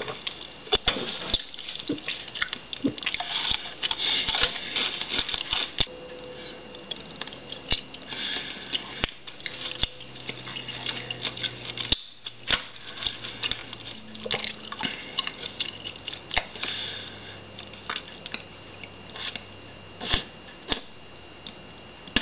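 Close-up mouth sounds of a person drinking from a soda can and eating snacks: irregular small clicks, crunches and lip smacks of swallowing and chewing.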